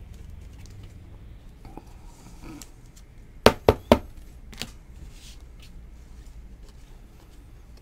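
Trading cards being handled and tapped on a table: three quick sharp taps about three and a half seconds in, then a fainter one.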